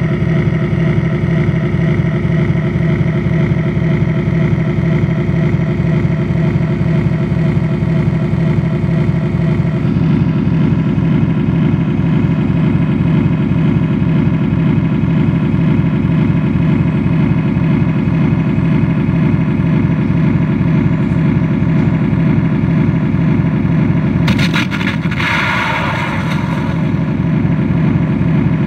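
Simulated tank engine running steadily, from an RC model tank's sound unit; its note shifts slightly about ten seconds in. A short burst of noise breaks in about 24 seconds in.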